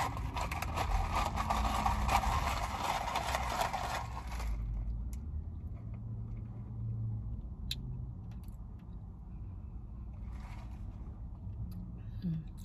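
An iced espresso drink in a plastic cup being tried: a noisy rustling clatter for about the first four seconds that stops abruptly. After it come a low steady rumble and a few faint clicks.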